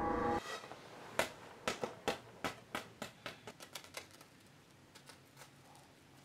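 A held musical chord cuts off just after the start. Then a rubber ball drops and bounces on a hard floor: about a dozen sharp bounces, coming faster and fainter until it comes to rest.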